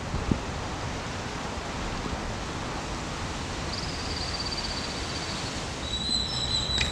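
Steady outdoor noise haze, like wind on the microphone. In the second half a thin high whistle-like tone sounds twice, each for a second or more, and a short click comes near the end.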